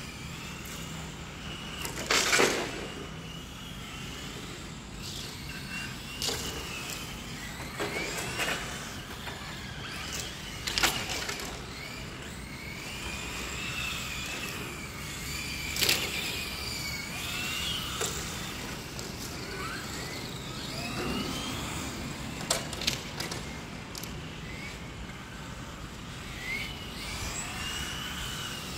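Electric 1/10-scale Tamiya TT-02 RC touring cars racing: the whine of their electric motors rising and falling in pitch as the cars speed up, slow and pass. Several sharp knocks stand out over it.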